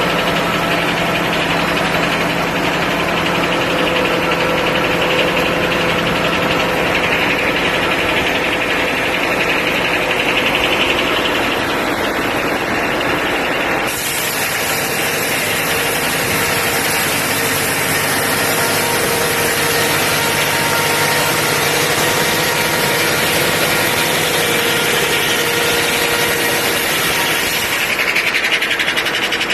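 International UD-14 diesel power unit running steadily, driving a Corley sawmill. About halfway through, the sound changes abruptly to a brighter, hissier mix.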